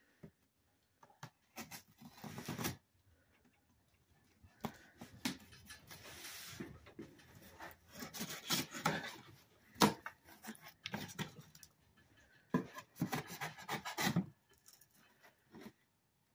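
Box cutter slicing through packing tape on a cardboard shipping box in short, irregular scraping strokes, with cardboard rubbing and a sharp knock about ten seconds in; the box flaps are pulled open near the end.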